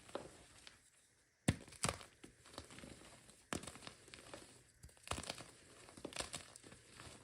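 Gym chalk being crushed into crumbles: a series of sharp, dry crunches with crackling between them, after a brief lull about a second in.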